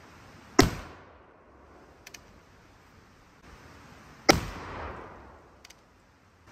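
Two shots from a reproduction Zouave .58-calibre percussion rifle firing Minié balls over a 50-grain black powder charge, about three and a half seconds apart. Each is a sharp report followed by a short rolling echo. A faint click falls between them.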